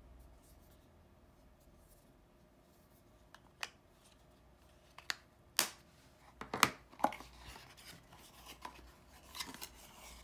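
Paper and cardboard being handled: a string of sharp snaps and clicks, then softer rustling, as printed cards and a leaflet are taken out of a cardboard box. It starts about three and a half seconds in, and the loudest snap comes near the middle.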